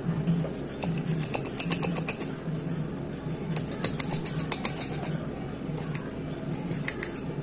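Dhol drumming from a neighbour's kirtan, heard at a distance as a steady low beat about twice a second. Over it come quick close clicks and rattles, in two bursts, from a knife scraping the peel off ginger root.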